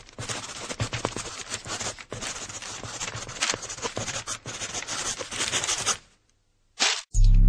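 Pencil scratching on paper as the logo is sketched out: a dense, continuous run of scratches and small clicks that stops about six seconds in. Near the end a loud low hum starts.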